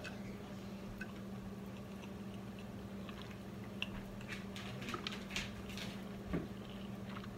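A person chewing fried chicken breast with the mouth mostly closed: quiet, scattered soft clicks and smacks, most of them in the second half, over a steady low hum.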